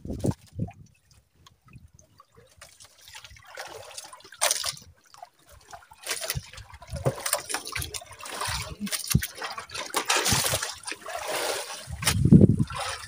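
Water trickling and splashing in irregular bursts, faint at first and busier from about six seconds in, with a louder low rumble near the end.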